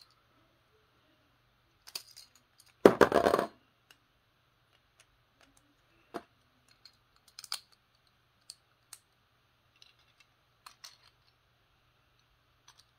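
Small plastic and metal Beyblade parts clicking and snapping as they are taken apart and refitted, with a louder clatter about three seconds in as a part lands on the plastic stadium floor.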